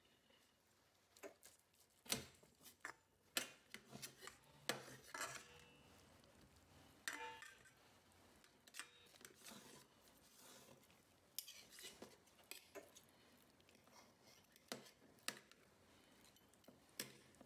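Knife and fork clicking and scraping against a stainless steel bowl while boiled chicken is cut into pieces: faint, irregular light metal clicks and short scrapes.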